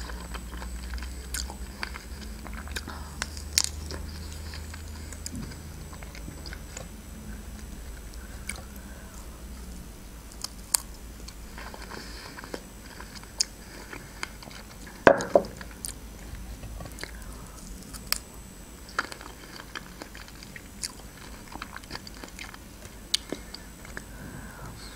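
A person chewing and biting into fresh strawberries dipped in melted chocolate, with scattered sharp mouth clicks; the loudest click comes about fifteen seconds in.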